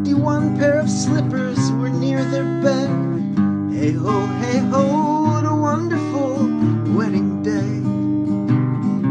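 Acoustic guitar strummed in a steady rhythm, with a man's voice carrying a wavering melody over the chords for most of the stretch.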